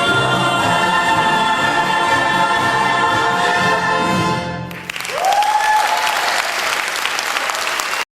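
Stage chorus with instrumental accompaniment holding the final chord of a musical-theatre number, breaking off about four and a half seconds in. Audience applause follows at once, with a single cheer rising and held, until the sound cuts off suddenly.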